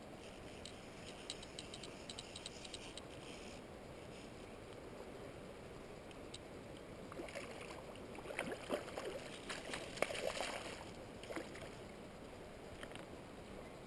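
A hooked sea-run cutthroat trout splashing at the surface close to the boat for several seconds, the splashes loudest around ten seconds in. Before that, a quick run of even clicks from the fly reel, over a faint steady sound of river water.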